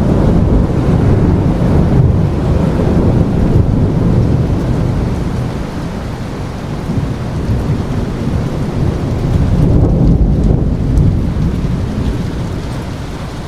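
Steady heavy rain with long rolls of thunder rumbling low underneath. The rumble is strong for the first few seconds, eases off, swells again about ten seconds in, then fades away.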